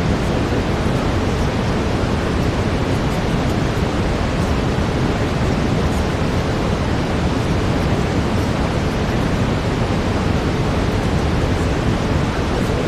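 Steady brown noise, a deep even hiss strongest in the bass, with no changes.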